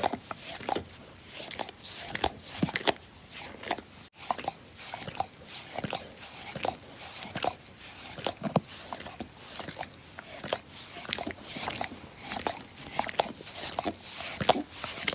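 Dog licking: a rapid, irregular run of wet tongue slurps and lip smacks, with a momentary break about four seconds in.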